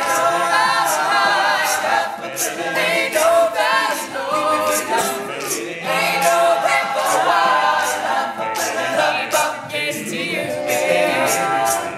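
All-male a cappella group singing in close harmony, with sharp percussive clicks keeping a steady beat.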